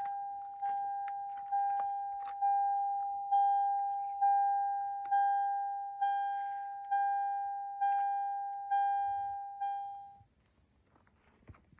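Lexus LX470's in-cabin warning chime, a single bell-like tone dinging evenly about once a second, about eleven times, then stopping near the end.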